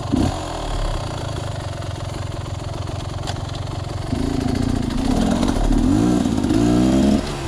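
A sawmill engine running steadily, then from about halfway through its revs rise and fall repeatedly, with a brief knock near the start.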